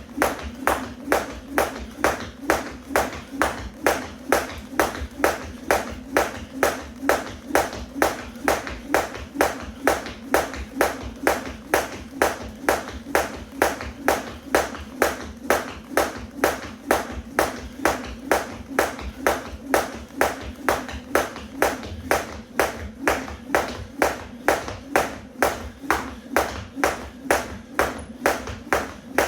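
A weighted 1 lb jump rope slapping the floor at a steady skipping rhythm, a little over two strikes a second.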